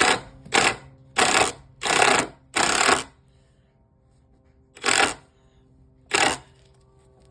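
Power drill driving a screw into wood in seven short trigger bursts, five in quick succession and then two more spaced apart.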